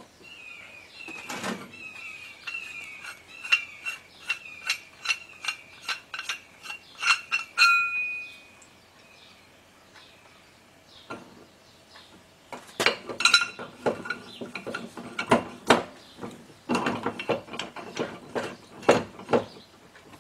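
Steel ball joint press parts (adapter cups, spacer block and C-frame) clinking and knocking against a rusty Dana 30 steering knuckle and steel bench as the press is fitted. A run of light ringing ticks, about two a second, fills the first eight seconds and ends in a short metallic ring; clusters of sharper clinks follow from about thirteen seconds in.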